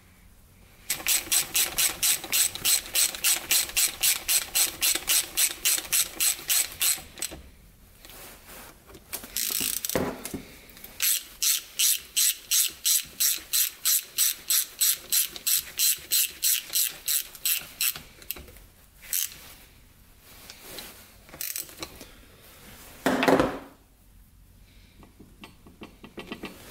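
Ratchet wrench clicking in two long runs of quick, even clicks, about four or five a second, as bolts are run into the Yamaha YFZ450 engine case. A few single knocks of metal on metal fall between the runs, the loudest near the end.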